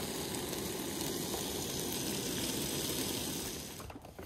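Steady sizzling hiss from food cooking on a camp stove, where fish have been deep-fried, dropping away sharply near the end.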